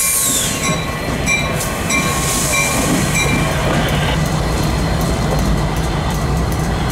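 CSX freight train pulling away behind an EMD diesel locomotive: a steady low rumble of engine and rolling wheels. A short metallic ringing tone repeats about three times a second and stops about three seconds in.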